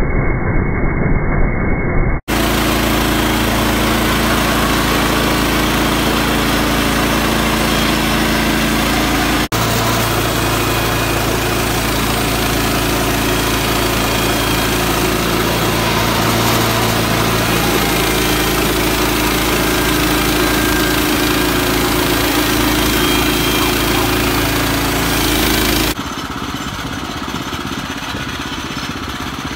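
Sawmill power-head engine running at a steady speed. The sound cuts abruptly about two seconds in and again about nine seconds in, and drops quieter a few seconds before the end.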